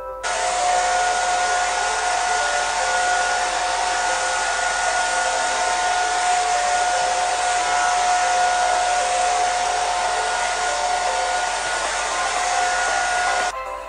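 Hair dryer running steadily, a rush of air with a steady whine, starting suddenly and cutting off abruptly near the end.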